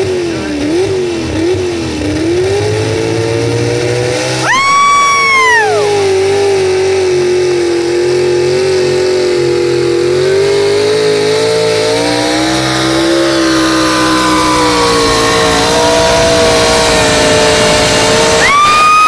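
Pickup truck engine pulling a weight-transfer sled: a few quick revs, then held at high revs under load with the pitch climbing slowly through the pull. A loud air horn blasts for about a second and a half about four and a half seconds in, and again near the end.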